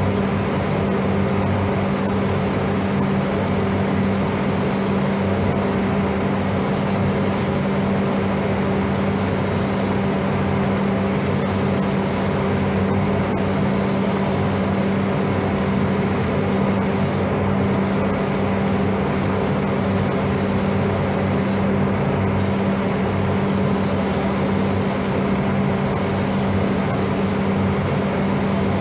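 Paint booth ventilation fans running with a steady, loud hum, under the hiss of a compressed-air spray gun spraying paint. The hiss breaks off briefly twice, past the middle, as the trigger is let go.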